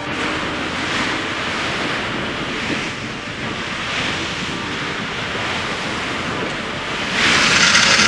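Water rushing and churning in the wake of a boat under way, with wind buffeting the microphone. The wash swells in waves, loudest near the end.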